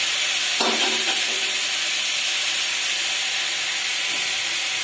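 Onion, garlic and tomato masala frying in hot oil in a kadhai: a steady sizzling hiss as the tomatoes cook down.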